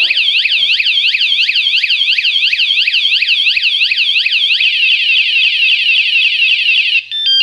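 A motion-sensor anti-theft alarm unit sounding its full alarm, the third stage that signals the vehicle is being moved. It gives a loud siren of quick rising-and-falling whoops, about four or five a second, which switches to a faster warble about four and a half seconds in and cuts off about a second and a half later. A couple of short beeps follow.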